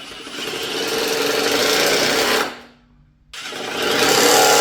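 Cordless impact driver run twice in bursts of about two seconds. Each burst builds up and then cuts off, with a short gap near the middle. It has an unusual, not loud at all sound for an impact driver.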